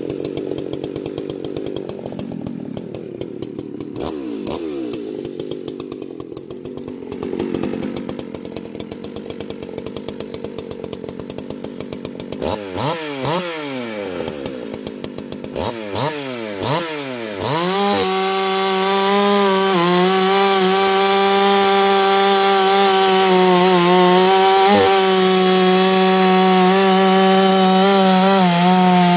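Husqvarna 181SE two-stroke chainsaw idling with a rapid, even patter. About twelve seconds in it is blipped through several quick revs up and down, then held at a steady high speed as it cuts into a large log.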